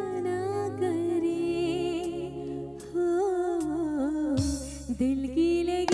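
A woman singing a slow melody into a microphone, holding long notes that bend and waver in pitch with small ornamental turns, over a band's soft sustained accompaniment and bass.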